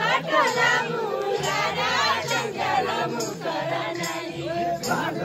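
A group of voices singing a Deuda folk song together in long phrases, the sung part of the Far-Western Nepali Deuda dance.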